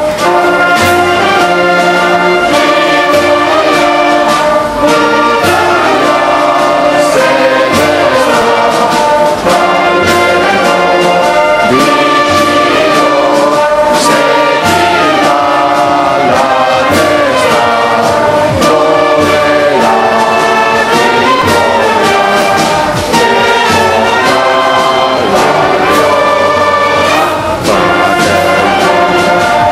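Brass band music, trumpets and trombones playing loudly and without pause.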